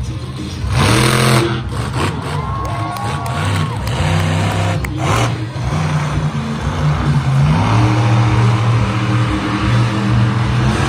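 Monster truck engine revving and running hard as the truck drives the dirt track, its pitch climbing about a second in and rising and falling after that. A short sharp burst cuts through about five seconds in.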